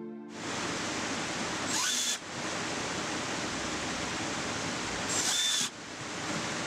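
Cordless drill/driver running in two short bursts, about two seconds and five seconds in, driving screws into plywood, over a steady hiss.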